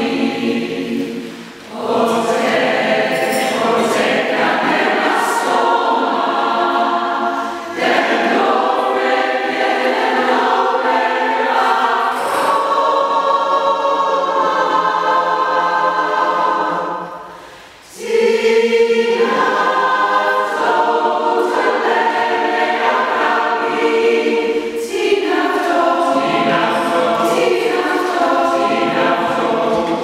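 Mixed choir of women's and men's voices singing together, pausing briefly twice between phrases.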